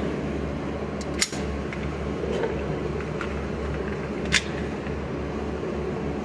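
Steady hum of an indoor range's ventilation, with two short, sharp metallic clicks, about a second in and again after four seconds, as the Hi-Point .380 pistol is handled.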